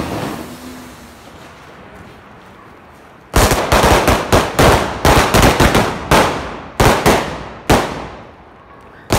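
Firecrackers going off on the ground: a rapid string of sharp bangs starts about three seconds in, then thins to a few separate bangs near the end.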